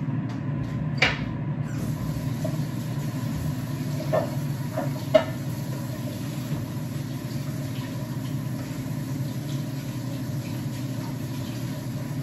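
Kitchen tap running into the sink as a cutting board and knife are rinsed, a steady rush with a few knocks and clinks of the board and knife, the sharpest about five seconds in.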